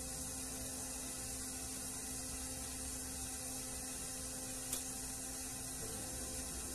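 Steady electrical hum over an even background hiss, with a single light click about two-thirds of the way through.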